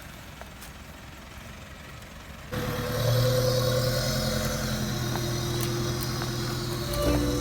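Off-road SUV engine running. It turns suddenly louder about two and a half seconds in, then holds a steady drone.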